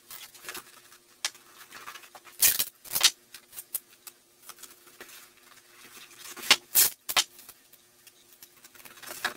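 Silver duct tape being pulled off the roll, torn into strips and pressed onto a cardboard box: a string of short ripping and crackling noises, loudest about two and a half to three seconds in and again around six and a half to seven seconds.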